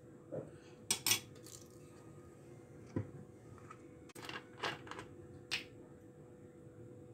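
A metal spoon clicking and clinking against a cut-glass bowl as sauce is spooned in: about half a dozen separate sharp taps spread over several seconds, the loudest pair about a second in.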